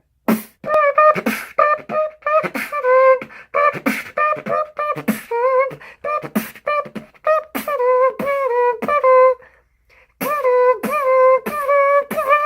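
Beatboxer imitating a trumpet and a snare drum at the same time with his mouth: a run of buzzing, trumpet-like notes over sharp snare hits, with a short break about nine and a half seconds in before the phrase picks up again.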